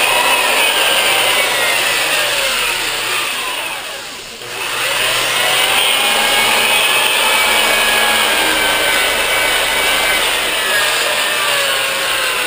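Milwaukee 5540 sander/polisher running with a sanding pad against the fiberglassed deck of a surfboard, a loud motor whine and grinding rasp whose pitch wavers as the pad is moved and pressed. It eases off briefly about four seconds in, then picks back up.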